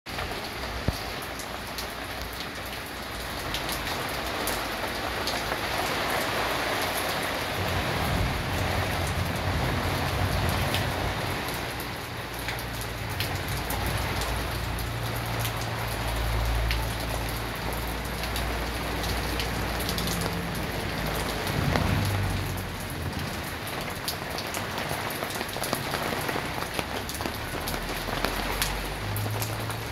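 Heavy rain falling steadily on a tiled terrace floor and potted plants, with water dripping and streaming off overhead shade netting, and many sharp individual drips heard through the hiss.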